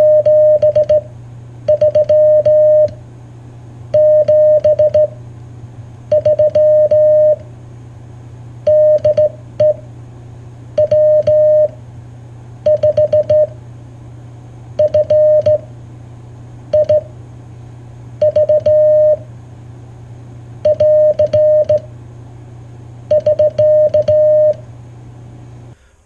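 Morse code sent by hand on a J38 straight key, heard as a single steady beep keyed on and off in quick dots and dashes. It comes in short groups about every two seconds, over a low steady hum.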